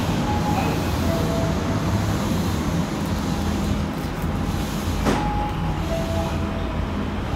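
Steady low rumble of a Keihan Line electric commuter train standing at a station platform, heard from the platform and then inside the car. A single sharp click comes about five seconds in.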